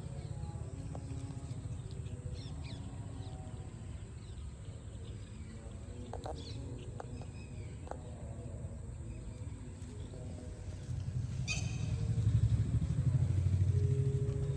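Outdoor ambience: small birds chirping over a steady low rumble, which gets louder about eleven seconds in.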